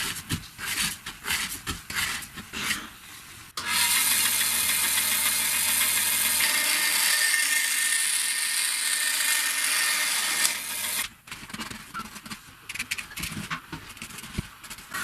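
Clicking and knocking of tool work, then a power tool starts suddenly and runs steadily at high speed for about seven seconds before cutting off, followed by more clicks and knocks.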